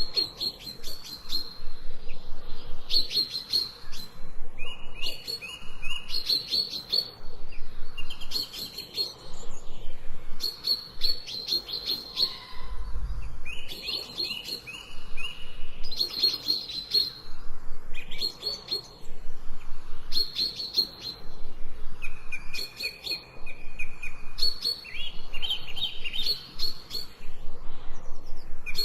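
Songbirds chirping in short, fast phrases of high notes, repeating every second or two, with some phrases on a lower note held briefly.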